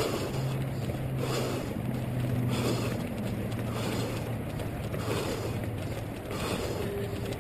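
Muffled wind and rustling noise on a head-mounted GoPro camera in its housing while running, swelling in a steady rhythm a little under once a second over a constant low hum.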